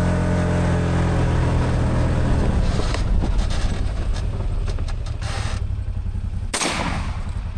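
Side-by-side utility vehicle's engine running hard with a strong steady drone, easing off after about two and a half seconds into rougher, less even running.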